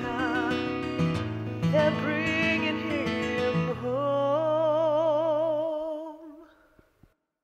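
Closing bars of a slow acoustic song: a woman's voice and strummed acoustic guitar over a bass line, ending on one long held note with vibrato that fades out about seven seconds in.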